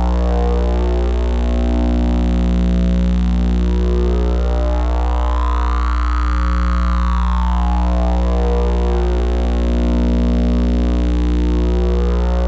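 Electronic oscillator drone: a loud, steady low hum under a dense stack of sustained overtones. About halfway through, a higher tone sweeps up and back down in a slow arc.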